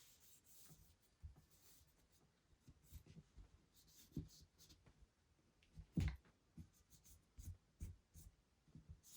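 Faint rubbing and handling of a Ruger P95 pistol slide being wiped with a rag, with scattered light knocks. The clearest knock comes about six seconds in.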